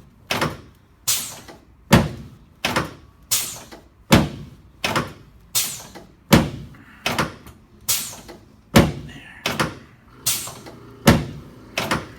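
Chiropractic adjusting table clacking in a steady rhythm, about sixteen sharp knocks a little more than one a second, each with a short ringing tail. These are repeated pumping thrusts being delivered to the pelvis and lumbar spine of a patient lying face down.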